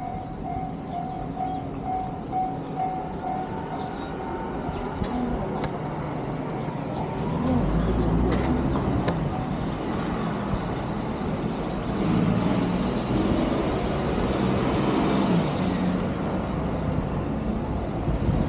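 Road traffic: motor vehicles running past close by, with a heavy engine loudest from about eight seconds in. A repeating electronic beep sounds in the first few seconds and fades out.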